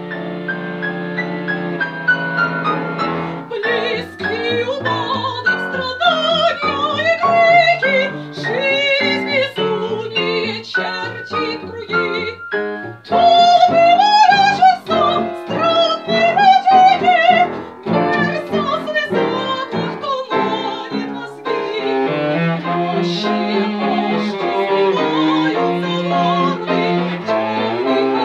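Live contemporary classical chamber music: a woman singing in a classical style with cello and piano. Short, clipped chords run through the middle, the voice sings a long wavering line about halfway through, and low held cello notes sound near the start and near the end.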